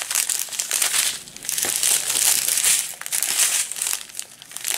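Clear plastic bags of diamond-painting drills crinkling as they are handled and turned over, loudest about halfway through.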